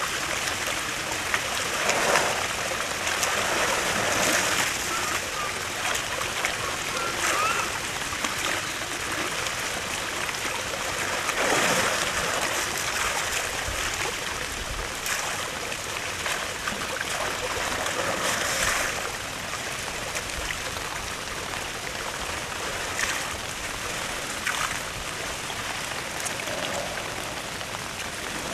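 Steady rush of water in an elephant's pool, with several louder splashes as a young elephant steps and plays in it and then lies down in the water.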